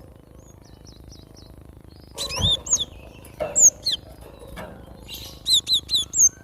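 Cinereous tit (glatik batu) singing: loud, clear whistled notes that slide in pitch, ending in a quick run of four repeated notes. A low thump sounds about two and a half seconds in.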